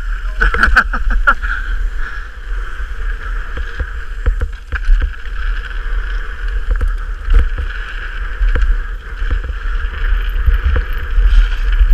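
Mountain bike ridden fast down a dirt downhill track, heard from a camera on the bike or rider: a steady low wind rumble on the microphone and the hiss of tyres rolling over dirt and gravel, with frequent knocks and rattles as the bike hits bumps.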